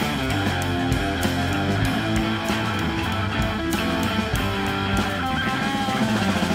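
Loud rock music with electric guitar and bass, played by a live band.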